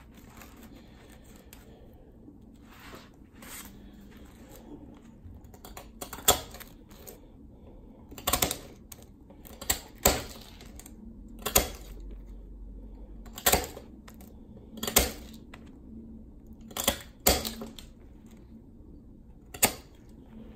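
A knife chipping and shaving a block of clear ice by hand. There is light scraping at first, then from about six seconds in come sharp cracking chops every one to two seconds, about ten in all.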